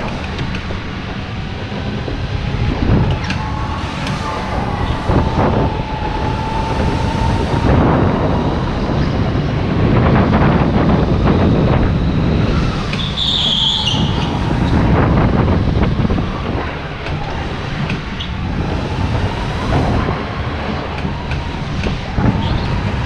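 Go-kart driving at speed on an indoor track, heard from the driver's seat: a steady rumble with a whine that rises and falls through the corners, and a brief high squeal about thirteen seconds in.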